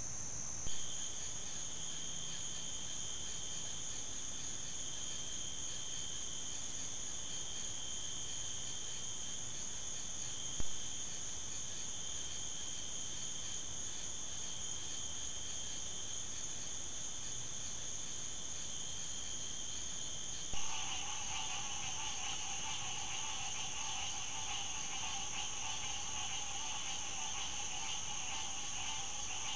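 Steady night chorus of insects trilling at a high pitch over background hiss. About two-thirds of the way through the chorus changes, with stronger, lower-pitched calling joining in, and a brief jump in level marks each cut between clips, about every ten seconds.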